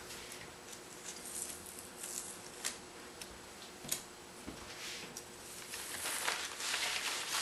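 Tyvek kite sail and tape being handled on a work table: scattered light clicks and taps, then a rustle that builds near the end as the sheet is moved.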